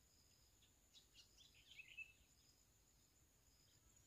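Near silence, with a few faint bird chirps between about one and two seconds in.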